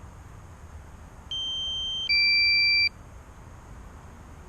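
Drone remote controller's electronic warning beep: a steady higher tone for under a second, then a lower, louder tone for about as long, in a pattern that repeats every four seconds. The beeping comes as the aircraft battery runs down toward its low-battery warnings.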